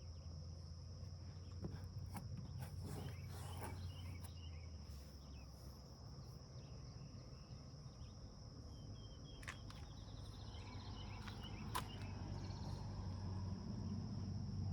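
Insects trilling in a steady high-pitched drone, over a low hum, with a few faint clicks and taps.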